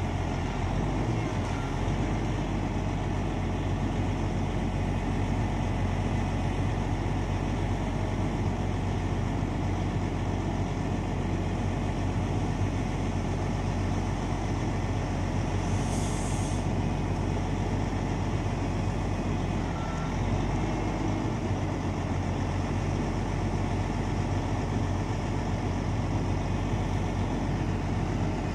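Log truck's diesel engine running steadily, powering the hydraulics of its truck-mounted knuckle-boom log loader as the crane handles logs. A short burst of air hiss comes about halfway through.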